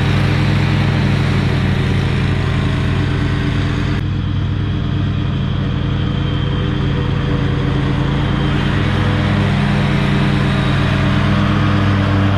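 Exmark Radius zero-turn mower's engine running steadily while mowing. It is a little quieter in the middle and louder again near the end as the mower comes back close.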